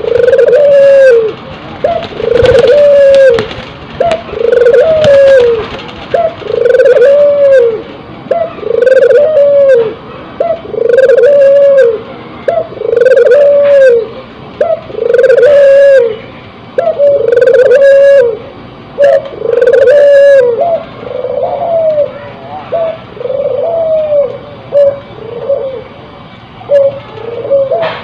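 Ringneck dove (puter) cooing over and over, about one rising-and-falling coo a second, the calls softer and shorter near the end, with a few light clicks.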